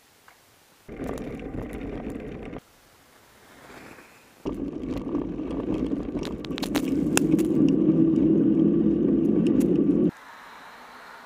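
Radon ZR Race 6.0 mountain bike's front tyre rolling over snow and slush, heard up close, with scattered clicks and rattles. A short burst comes about a second in, then a longer stretch from about four and a half seconds that grows louder and cuts off suddenly near the end.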